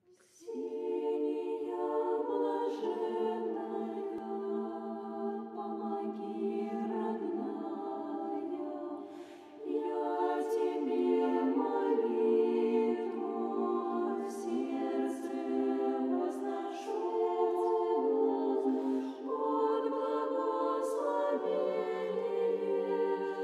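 A choir singing a cappella in slow, sustained chords, with a brief dip in level about nine seconds in.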